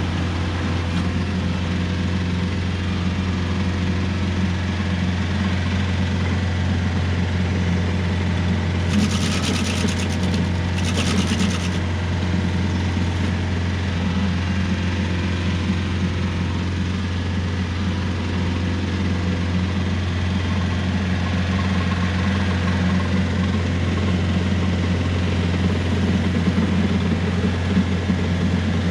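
Rural King RK55 tractor's diesel engine running steadily, with a strong even low drone. Two brief hissing bursts break in about nine and eleven seconds in.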